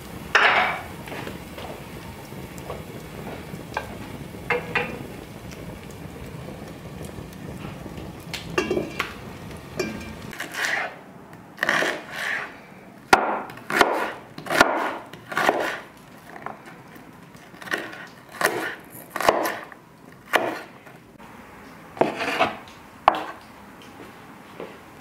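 Wood fire burning in an open hearth, a steady low sound with a few crackles and clicks. After about ten seconds it gives way to a steel knife chopping onions on a wooden cutting board: about twenty irregular chops, one every half second to second.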